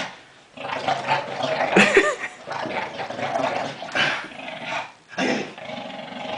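Bulldog growling in play while tugging on a rope toy, in rough stretches with short breaks.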